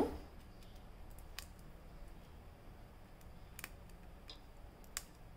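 A few small sharp clicks as green cardamom pods are split open between the fingers, over a faint steady room hum.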